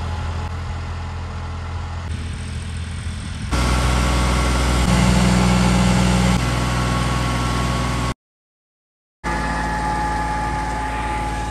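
Tractor diesel engine running steadily under load while pulling a tine cultivator through ploughed soil. It gets louder about a third of the way in, and drops out for about a second near the end.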